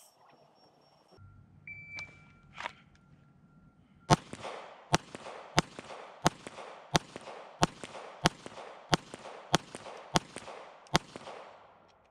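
A shot timer beeps, and about two and a half seconds later a Glock 17 9mm pistol fires eleven shots at an even, steady pace, a little under a second apart.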